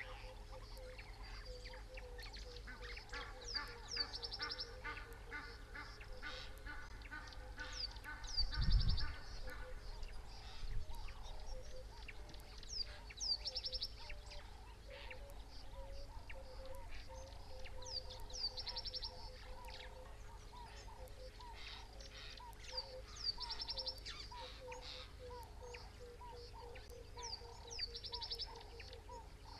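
Several wild birds calling outdoors. One call, a quick downward whistle followed by a fast high trill, repeats every few seconds over steady lower rhythmic calling. A short low thump comes about nine seconds in.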